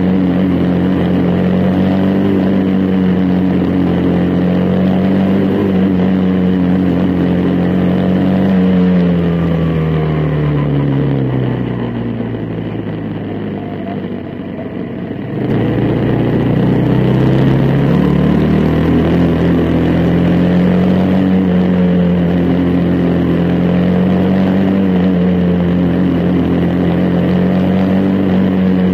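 Single-cylinder Briggs & Stratton Animal engine of a quarter midget race car running hard on the track, heard onboard. About nine seconds in the engine note falls away as it slows and stays low for a few seconds, then about fifteen seconds in it climbs quickly back up to a steady high note.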